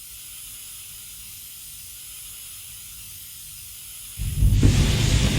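Flamethrower: a steady high hiss, then about four seconds in it fires with a sudden, much louder, deep rushing blast that carries on.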